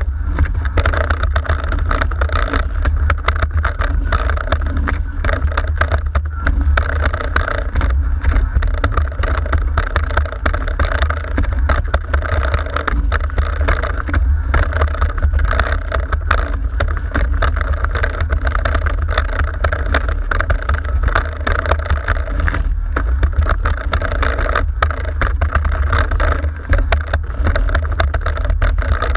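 Wind buffeting the microphone and water rushing past a foiling International Moth dinghy under sail: a loud, steady rush over a low rumble, with a faint steady hum underneath.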